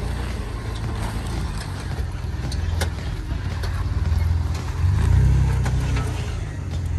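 Jeep engine running at low speed on an off-road trail, a steady low rumble that grows louder about five seconds in, with a few light clicks.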